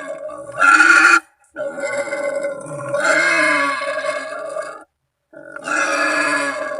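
Wild pig calling: a short squealing call, then a long drawn-out one of about three seconds, then another starting near the end, with brief gaps between. These are the calls used to lure wild pigs in for hunting.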